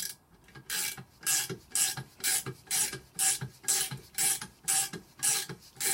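A ratchet-action tap-and-die handle is worked back and forth in short strokes, about two a second, a rasping ratchet sound on each stroke. The M10 die is running down the existing thread of a bolt held in a vise.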